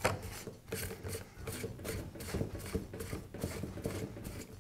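Metal barrel assembly of a Milwaukee cordless grease gun being screwed by hand into the gun's head: a run of light scraping rubs and small clicks, two or three a second, as the threads turn.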